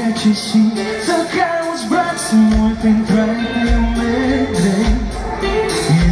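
Live band playing a pop song, with a male singer singing the melody over guitars and drums. The bass and kick drum come in heavily about two and a half seconds in.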